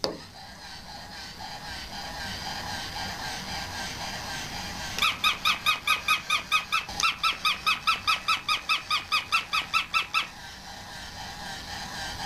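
Battery-powered switch-adapted plush St. Bernard puppy toy running while its switch is held: a steady whirring from its mechanism, with a fast run of high squeaky electronic chirps, about five a second, for about five seconds in the middle.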